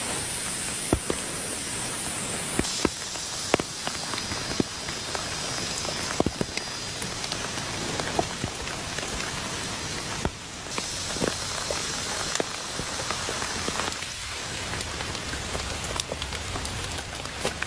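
Heavy rain falling steadily, with scattered sharp taps and clicks at irregular intervals.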